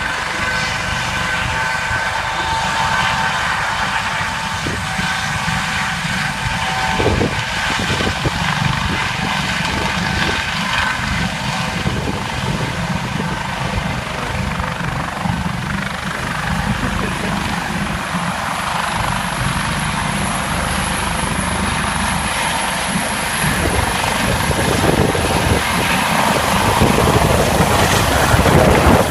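Police helicopter's turbine engine and rotor running close by, a steady whine over a heavy rotor noise that grows louder near the end.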